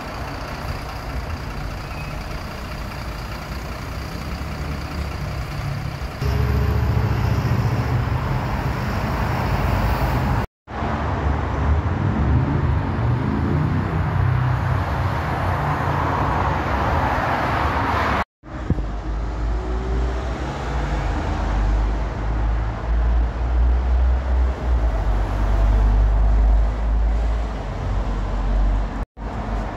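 City buses running past on a street amid traffic, a low engine rumble rising and falling as each bus goes by. The sound breaks off abruptly for an instant twice as one clip cuts to the next.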